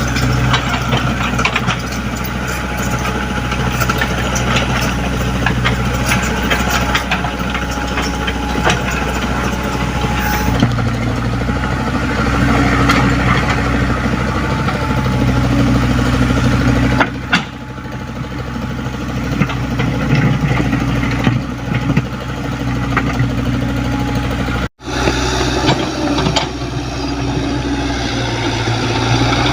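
Komatsu PC75UU mini excavator's diesel engine running steadily, with scattered metallic knocks and clanks over it. The sound breaks off for an instant about three-quarters of the way through.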